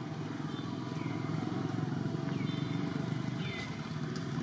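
Outdoor background: a steady low rumble with short, high, downward-curving chirps repeating every half second or so.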